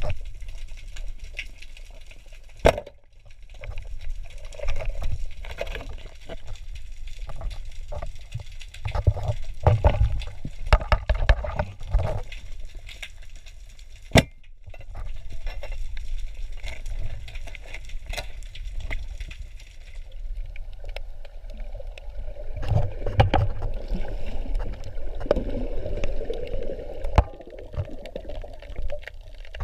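Underwater sound from a camera in its waterproof housing on a night spearfishing dive: a muffled low rumble of water movement, with many scattered sharp clicks and knocks.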